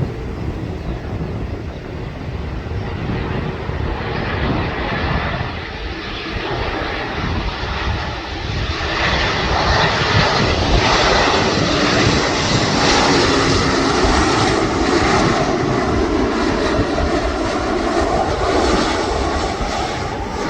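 Airliner's engines on landing approach, growing louder about halfway through and staying loud as the aircraft passes close, with a faint steady whine. Low wind rumble on the microphone underneath.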